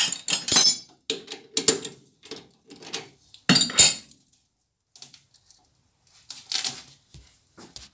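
Metal-on-metal clinks and rattles in several short bursts as a small steel tube is taken out of a lathe's three-jaw chuck and handled.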